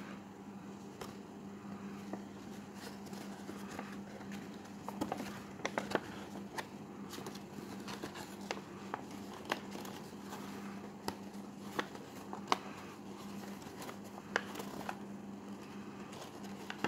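Paper being folded and handled: scattered small crinkles and taps as the creases are pressed, over a steady low hum.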